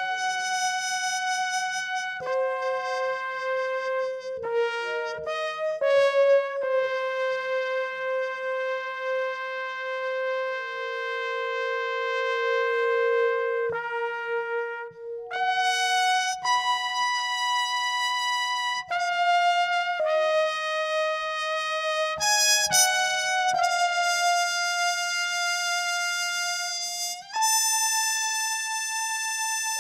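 Soundtrack music: a slow melody on a brass instrument, long held notes one after another, with a lower line sounding beneath it.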